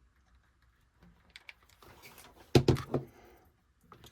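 Light clicks and taps of craft pieces being handled and set down on a table, with a quick cluster of three louder knocks about two and a half seconds in.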